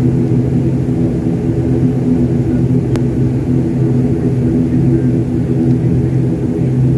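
Airliner cabin noise while taxiing: the engines' steady low rumble with a steady multi-tone hum, heard from inside the cabin.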